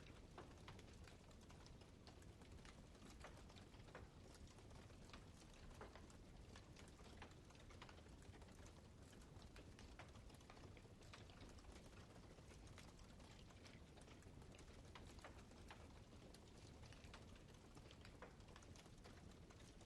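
Faint crackling of a wood campfire: an irregular scatter of small pops and snaps over a soft steady hiss.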